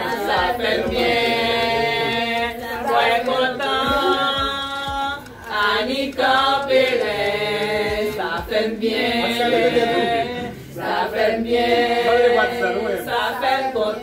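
Several voices singing together in long, drawn-out notes.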